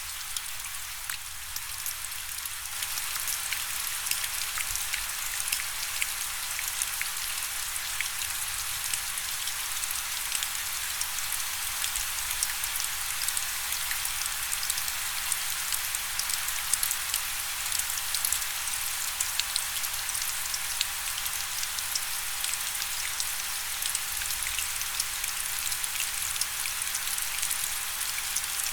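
Steady rain, a dense hiss of many individual drops ticking on a surface, a little heavier from about three seconds in.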